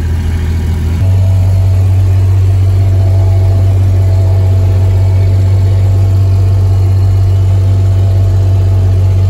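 Vehicle engine and road noise heard from inside the cabin: a loud, steady low hum that steps up a little about a second in as the vehicle moves along slowly.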